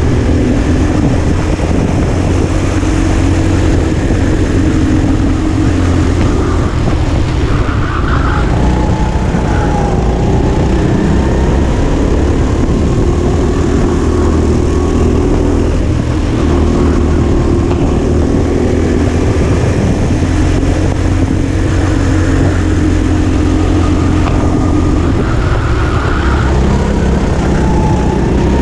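Go-kart engine running flat out, heard from on board, its note dipping and picking up again every few seconds as the driver lifts and gets back on the throttle through the corners.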